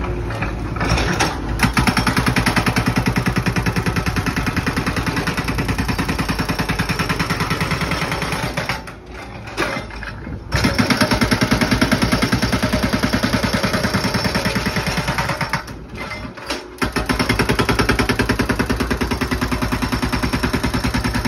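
Excavator-mounted hydraulic breaker hammering a concrete slab with rapid, steady blows. It stops twice briefly, once a little under halfway in and again about three-quarters of the way through, then starts hammering again.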